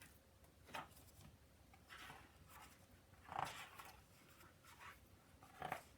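Faint rustling of paper, a few soft brushes as a picture book's page is turned and handled, in an otherwise quiet room.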